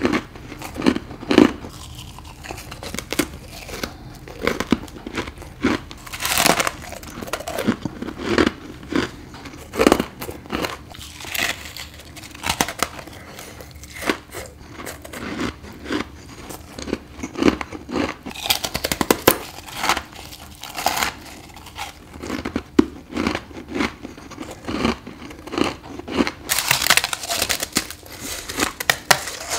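Close-miked bites and chewing of freezer frost and ice, a run of irregular crunches with longer crumpling, crackling stretches as the powdery frost is crushed between the teeth.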